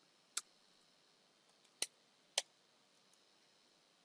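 Three separate, faint computer keyboard keystroke clicks, the first near the start and the last two about half a second apart.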